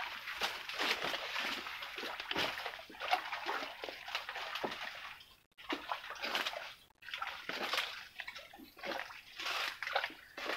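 Water splashing and sloshing close by in a continuous run of short, irregular splashes, dropping out briefly twice near the middle.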